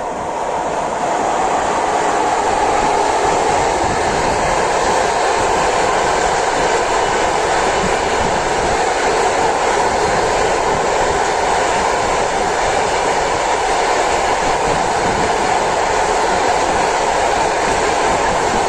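A ChS7 electric locomotive and its long train of passenger coaches passing close by: a steady rolling noise of wheels on rail that swells over the first couple of seconds and then holds even.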